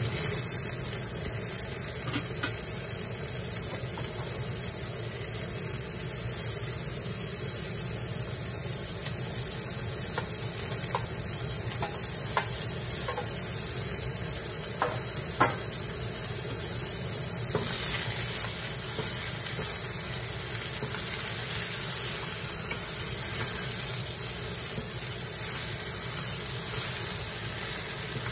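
Mushrooms and okra sizzling in a hot pan while a wooden spatula stirs and scrapes them, with a few light knocks of the spatula against the pan.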